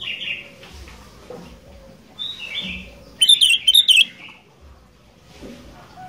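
Sooty-headed bulbul (kutilang) calling in short phrases: a brief call at the start, another about two seconds in, and a loud, harsh burst of calls a little after three seconds.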